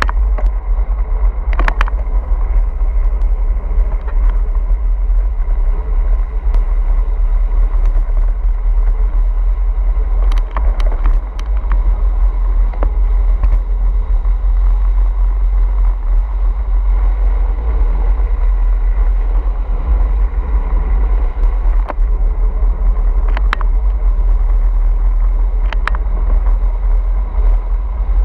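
Riding a motorcycle: steady, loud wind rumble on the bike-mounted camera's microphone with the motorcycle running beneath it, and a few short clicks.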